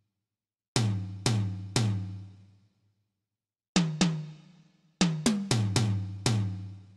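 Tom-tom drum struck ten times in irregular groups: three even strokes, a pause, two quick ones, then a run of five. Each hit has a low, pitched ring that dies away over about a second.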